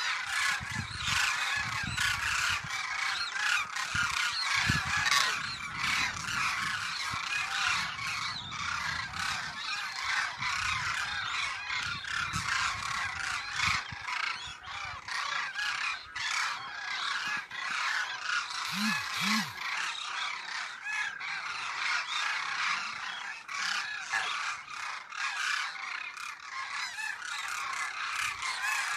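A large flock of demoiselle cranes calling in flight: a continuous chorus of many overlapping calls, none standing out from the rest.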